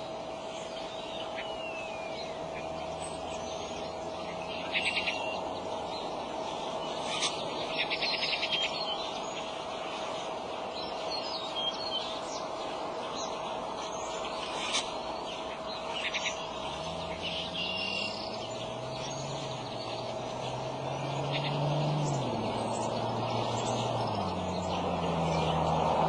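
Birds chirping and calling in short scattered bursts and brief trills, over a steady outdoor hiss and a faint constant hum. In the second half a low vehicle engine drone comes in, sliding up and down in pitch.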